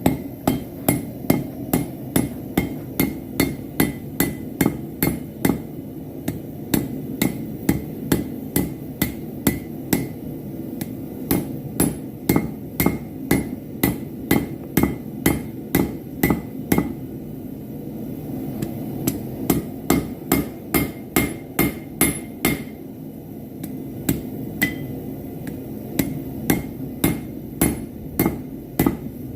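Hand hammer striking steel on an anvil in a steady rhythm of about two blows a second, each blow with a bright ring, stopping twice for a couple of seconds in the second half. A steady low rush runs underneath, typical of a propane forge burner.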